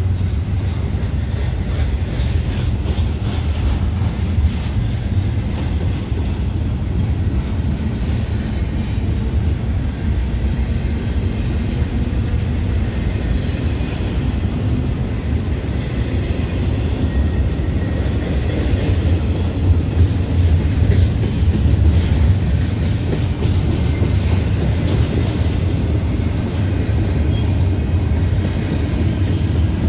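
A train rolling past on the main line: a steady, heavy rumble of wheels on rail with scattered clicks, swelling louder about twenty seconds in.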